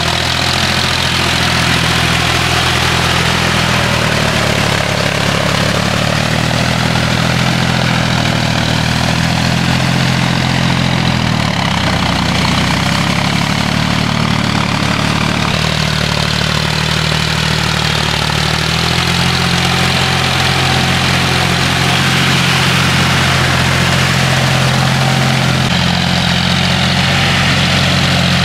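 John Deere tractor's diesel engine running steadily under load, pulling a rotary tiller through flooded mud. The engine note shifts slightly a couple of times, with a continuous hiss above it.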